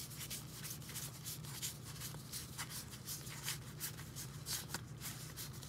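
Faint papery flicks and rubs of a stack of 2020 Topps Gypsy Queen baseball cards being thumbed through by hand, several soft ticks a second at an uneven pace.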